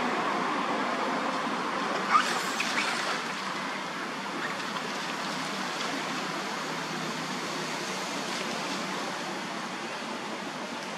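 Monkeys splashing through shallow muddy water, with one sharp splash about two seconds in, over a steady rushing noise.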